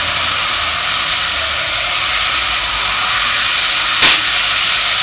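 Hot oil sizzling steadily as a thin stream of batter is drizzled into it and fries into crispy bits. A brief click about four seconds in.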